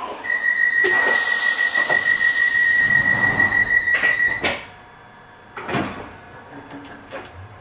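London Underground 1973 Stock train's door-closing warning: a steady high tone for about four seconds, then the sliding saloon doors shut with a sharp knock, followed by a second knock a second or so later.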